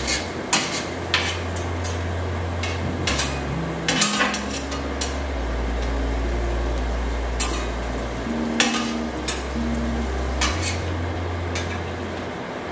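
Metal spatula scraping and clacking on a flat metal griddle pan, stirring onions and bell peppers as they sizzle. The clacks are scattered and irregular, heaviest at the start and about four seconds in.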